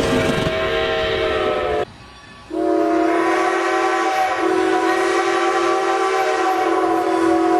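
Steam locomotive whistles: one long steady blast breaks off about two seconds in, and after half a second's pause a second long steady whistle blast, lower in pitch, starts and holds.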